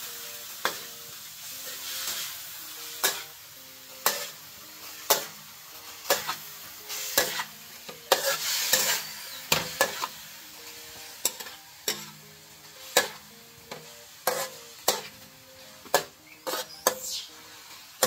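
Metal spatula clanking and scraping against an aluminium wok, about once a second, as chopped meat stir-fries with a steady sizzle.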